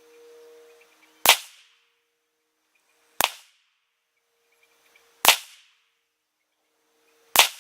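Four single rifle shots from an AR-15 with a 16-inch 5.56 upper firing .223 55-grain full metal jacket ammunition, spaced about two seconds apart, each with a short echo tail.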